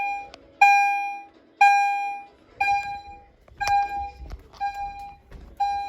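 Fire alarm notification appliance sounding in alarm after a manual pull station has been pulled: a pitched electronic tone repeating about once a second, each sharp at the start and fading over most of a second.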